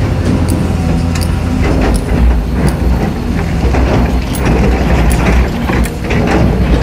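Caterpillar 320D excavator's diesel engine running steadily under working load, heard from inside the operator's cab, with scattered clicks and knocks as the bucket digs into sandy soil.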